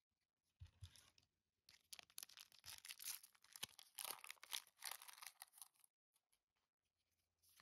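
Foil trading-card booster pack being torn open and crinkled by hand. The crackling rustle runs from about two seconds in to near six seconds.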